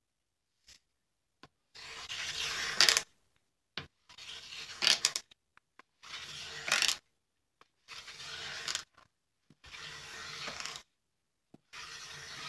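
Small Japanese wooden hand plane (kanna) taking repeated shaving strokes across a thin wooden board: six strokes of about a second each, roughly one every two seconds, some ending in a sharper hiss as the blade leaves the wood. The board is being trued flat as it bows.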